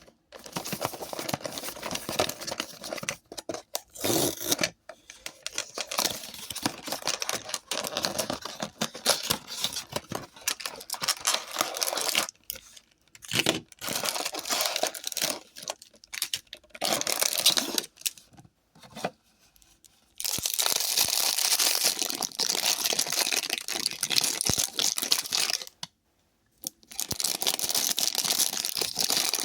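Blind-bag packaging being torn open and crinkled by hand, in irregular rustling bursts with short pauses, and a longer spell of steady crinkling about two-thirds of the way through.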